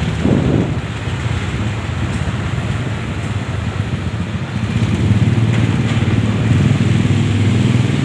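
Motorcycle engine running at low speed, with a short rev just after the start and a louder, steadier run from about five seconds in.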